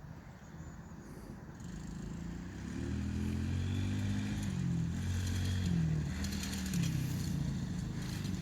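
Kids' mini ATV's 110cc four-stroke engine running, faint at first and then louder from about a third of the way in, its pitch rising and falling several times.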